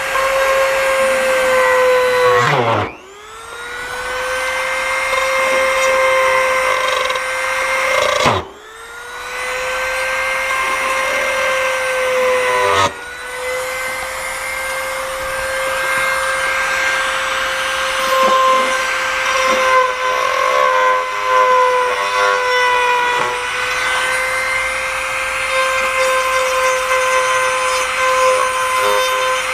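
Electric drill running at a steady high speed, boring a hole through motorcycle plastic for the mirror wiring. Twice, a few seconds in and again near the middle, the motor is let off and winds down with a falling pitch, then spins back up.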